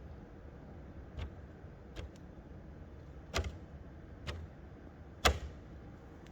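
Five sharp, irregular clicks and knocks about a second apart, the loudest about five seconds in, over a low steady hum.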